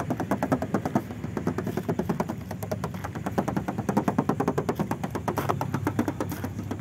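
Rapid knuckle knocking on the sheet-metal door and rear quarter panel of a 1996 Mazda Familia Lantis, about eight sharp taps a second, over a steady low hum. The tapping tests the bodywork, which still sounds as thin bare metal ('masih kaleng') with no thick body filler under the paint.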